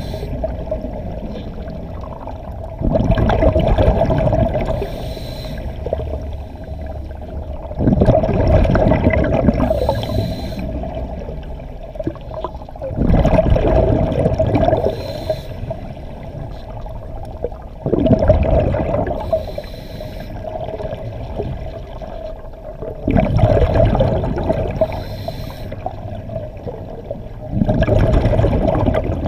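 A scuba diver breathing through a regulator underwater: a short hiss on each inhale, then a rush of exhaust bubbles rumbling for two to three seconds, repeating about every five seconds, six exhales in all. A steady hum runs underneath.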